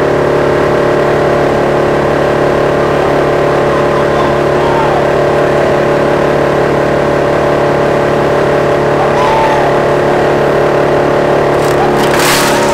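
Drum wood chipper running steadily at speed, a loud even hum with several held tones. Near the end a short burst of clatter sounds over it.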